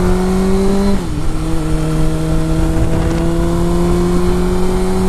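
2005 Suzuki GSX-R600's inline-four engine accelerating hard up a highway on-ramp: the engine note climbs steadily, drops with an upshift about a second in, then climbs again in the next gear.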